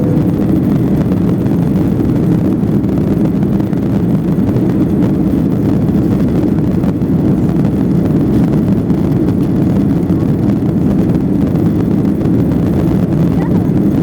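Steady jet engine and airflow noise heard inside the cabin of an Airbus A330-300 airliner in its climb after takeoff. The noise is loud, low and even, with no changes.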